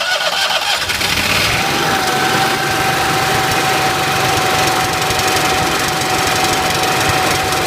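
Onan Marquis 7,000-watt RV generator's twin-cylinder gasoline engine running loud and steady just after starting, with a steady whine coming in about two seconds in. The owner says the choke is acting a little goofy.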